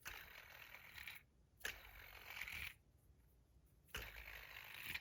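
Fidget spinner handled and fidgeted in the fingers: three faint spells of soft rubbing noise, each about a second long, with quiet gaps between.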